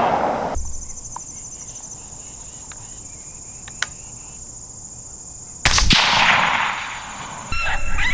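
A single rifle shot goes off partway through, a sharp crack that rolls away over a second or two. Insects buzz steadily in the background.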